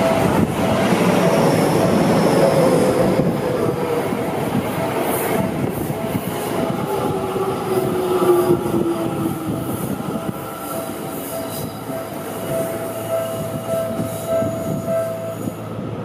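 A Seibu Ikebukuro Line electric commuter train passing close by on a curve. It is loudest in the first few seconds, its wheels squeal, and a tone falls in pitch as it goes by. A level-crossing warning bell rings over it and stops near the end.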